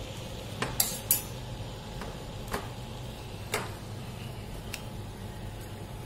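Hands kneading soaked bread into dough in a cut-glass bowl, with about six sharp clinks of fingers against the glass, the loudest two about a second in. A steady low hum sits underneath.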